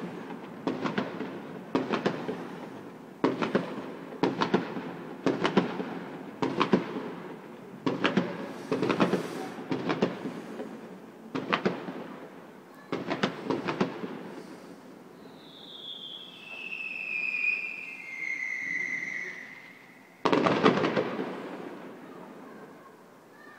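Fireworks display: a run of sharp bangs about once a second, then several high whistles falling in pitch, and one last loud bang near the end.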